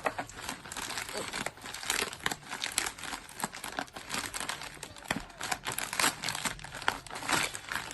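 Packaging crinkling and tearing in a dense run of irregular rustles and crackles as an album is unwrapped by hand.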